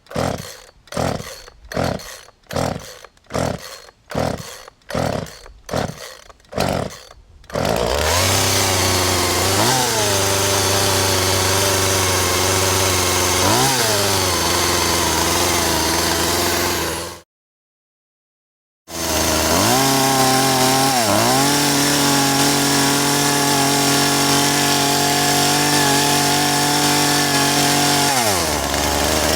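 Chainsaw being pull-started: a series of quick tugs on the recoil starter cord, about one a second, until the engine catches about seven seconds in. It then runs steadily with brief throttle blips. It stops suddenly about halfway through and starts running again under two seconds later, with more blips.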